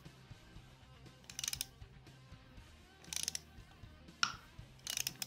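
Hand socket ratchet clicking in three short bursts about two seconds apart as its handle is swung back between pulls, with one lone sharp click between the last two bursts. It is turning an M8 bolt that presses a clutch bell into its bearing on a Go-Ped motor mount.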